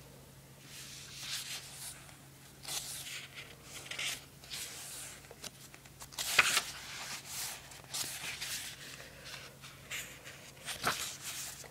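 Book pages being turned and handled: a series of paper rustles and swishes, with sharper flips about six seconds in and again near the end, over a faint steady low hum.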